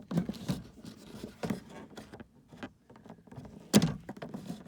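Small metallic clicks and taps of hands and a tool working at the window crank handle's retaining clip, with one sharper knock near the end.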